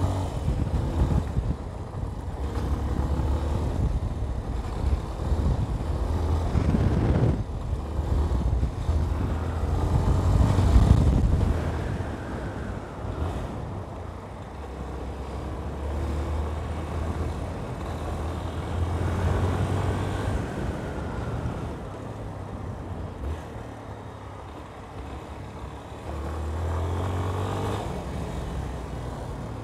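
Yamaha Ténéré 250's single-cylinder four-stroke engine running under way on a dirt track, its revs rising and falling with the throttle. It is loudest about ten seconds in and eases off for a while past the middle.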